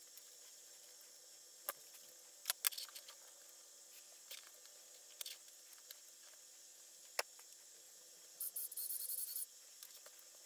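Light handling noises of a disassembled plastic toy and its wiring on a tabletop: scattered sharp clicks and taps, then about a second of scratchy rustling near the end.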